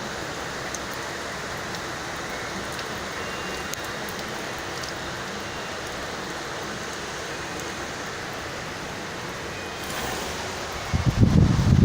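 Heavy rain falling steadily during a storm. About eleven seconds in, a much louder low rumble sets in abruptly.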